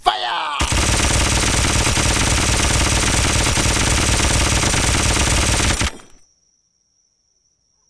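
Automatic rifle fire: a dense, rapid rattle of shots lasting about five seconds, then stopping abruptly.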